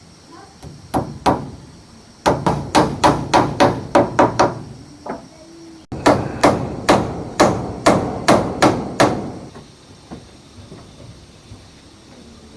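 Hammer blows in quick runs of about four a second: two single blows, then a run of about ten, a short pause, and another run of about ten.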